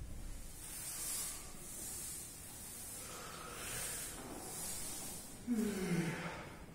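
A man breathing out hard in several short hissing breaths, then a low voiced sigh that falls in pitch, lasting under a second, near the end.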